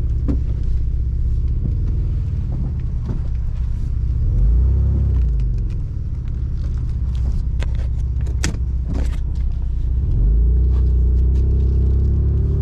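Third-generation Toyota 4Runner running, a steady low rumble that swells twice, about a third of the way in and again near the end. Several sharp clicks and knocks sound over it, the loudest two close together past the middle.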